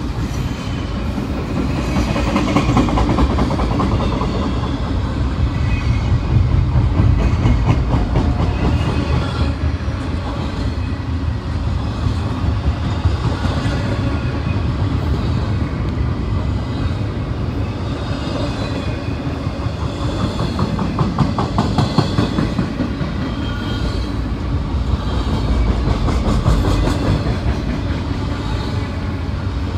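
Intermodal freight train rolling past close by: a steady heavy rumble with steel wheels clacking over the rail joints.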